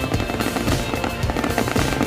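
Fireworks crackling and popping densely and continuously, with music playing alongside.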